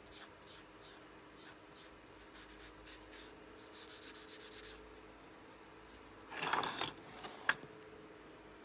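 A thin wooden model spoke rubbed back and forth on a hand-held sanding block, short scratchy strokes about three a second that quicken briefly around four seconds in. Near the end there is a louder rustle, then a single sharp click.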